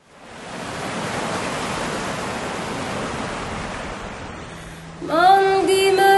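Sea surf breaking and washing over rocks, a steady rushing noise that fades in over the first second. About five seconds in, music begins with a long held note.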